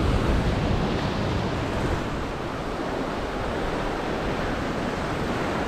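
Ocean surf breaking and washing over a lava-rock shoreline, a steady rushing noise, with wind rumbling on the microphone.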